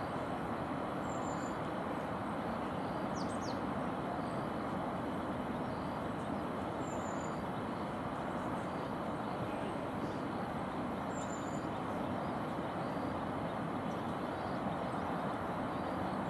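Steady, even hum of distant city traffic heard from high above, with a few faint, short high chirps every few seconds.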